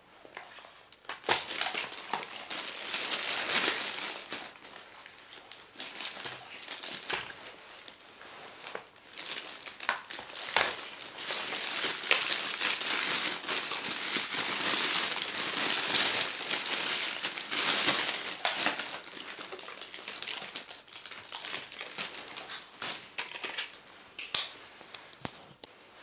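Clear plastic packaging bags crinkling and rustling as a keyboard and its cables are pulled out and unwrapped by hand, with many sharp crackles. The crinkling starts about a second in and keeps going in irregular handfuls.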